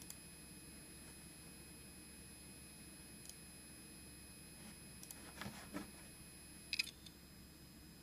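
Opened IBM hard disk drive running, with a faint steady high-pitched whine and a few sharp, irregularly spaced clicks from its head actuator, the loudest near the end.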